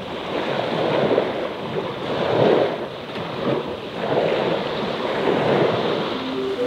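Small sea waves washing in on the shore, the wash swelling and falling back every second or two. Wind is on the microphone.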